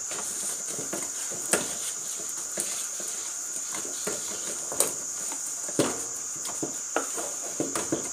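Wooden spoon stirring and pressing stiff ugali dough in a metal pot, with irregular knocks and scrapes against the pot, a few of them sharp and a quick run of them near the end. A steady high hiss runs underneath.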